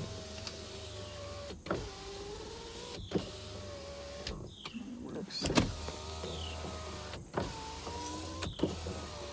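Electric power-window motors of a 2003 Hyundai Sonata running the windows up and down in turn, a steady whine and hum, with a sharp click each time a run stops and the next starts, several times over. The engine is not running.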